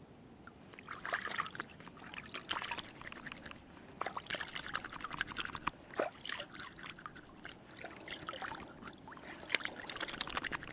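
Water splashing and trickling in irregular bursts, with small clicks, starting about a second in.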